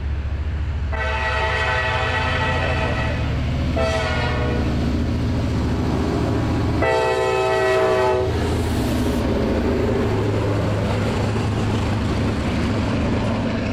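Norfolk Southern freight train led by GP59E and GP38-2 EMD diesel locomotives passing close, sounding its air horn in a long, short, long pattern, the grade-crossing warning. The diesel engines run steadily with the rumble of the train underneath.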